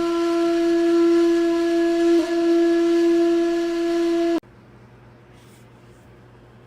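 A long, steady, horn-like note held on a wind instrument, played as the sound said to remind cats of being worshipped in ancient Egypt. It breaks briefly about two seconds in, then cuts off suddenly about four seconds in, leaving a faint low hum.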